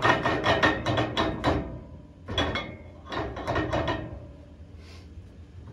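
Old blower pulley and its bushing sleeve being twisted and rocked by hand on the air handler's fan shaft, metal clacking and scraping in quick runs of about five strokes a second, as the pulley is worked free of the shaft. The clacking pauses about two seconds in, then comes in two shorter runs.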